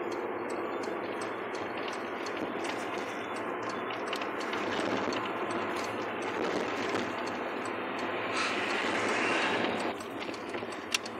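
Steady road and tyre noise of a car driving along a highway, with light clicking rattles throughout. A louder rushing hiss swells for about a second and a half near the end.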